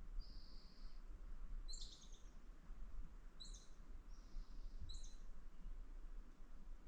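A bird calling: a long, steady high whistle near the start and again about four seconds in, with short high chirps between and after, about every second and a half. A low rumble runs underneath.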